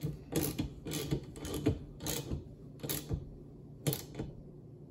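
Irregular sharp metal clicks and taps as the retaining nut is screwed back onto the rear wiper arm's pivot shaft and tightened by hand.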